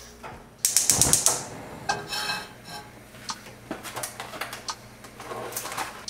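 Kitchen clatter of dishes and utensils being handled, with a loud quick run of sharp clicks about a second in, then scattered clinks and knocks.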